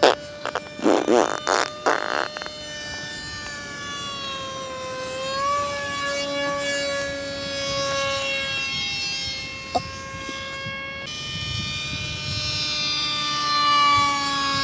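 Radio-controlled model Sukhoi-30 jet flying overhead: a steady, high whine with several tones whose pitch slides slowly up and down as the plane moves around the sky. A few loud thumps come in the first two seconds before the whine settles in.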